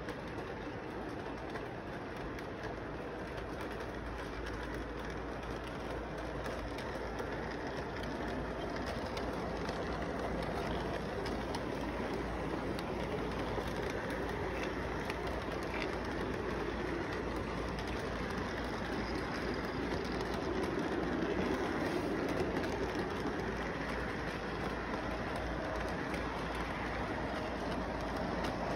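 Electric model train running along its track, a steady rumble of wheels and motor that grows louder as the cars pass close by, loudest a little past the middle.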